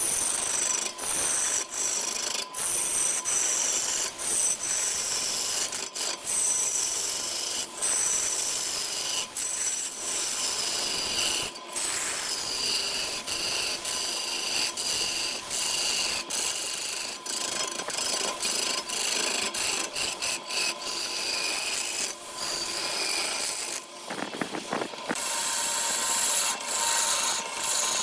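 Hand-held turning tool cutting into a wooden vase blank spinning on a wood lathe: a continuous rasping scrape of wood being shaved, with high whining tones that slide downward every second or two. A faint steady tone sits underneath.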